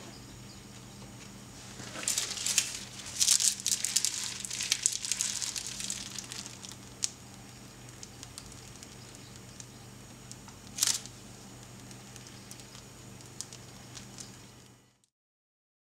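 Plastic piping bag crinkling as it is handled and squeezed, in a dense crackly run for a few seconds, then one sharp crinkle later, over a low steady hum. The sound cuts off suddenly near the end.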